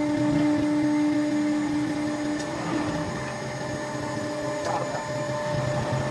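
CNC router spindle running with its bit cutting acrylic sheet: a steady whine of several fixed tones over a rough cutting noise. The lowest tone drops away about three seconds in.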